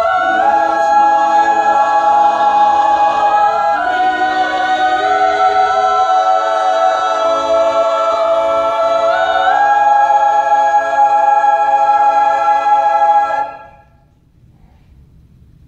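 Mixed choir singing a cappella, holding sustained chords that shift a few times. The voices cut off together about thirteen seconds in, leaving only low room noise.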